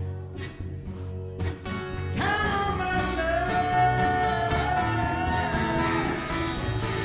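Live acoustic band music: two acoustic guitars strummed and picked over an upright double bass. Partway through, a long high melody note is held for a few seconds.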